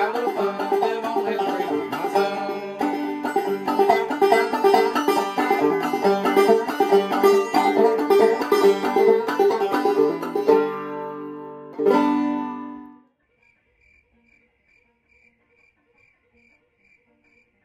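Banjo picked clawhammer style in a quick, steady, driving rhythm, ending on a strummed chord about twelve seconds in that rings out and stops. Then faint crickets chirping in an even rhythm.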